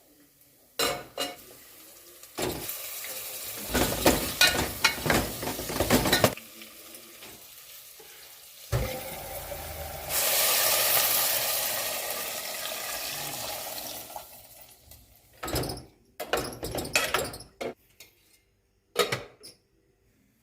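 Kitchen sounds: utensils clattering against dishes and pans, with a steady hiss lasting a few seconds in the middle, then a few separate knocks.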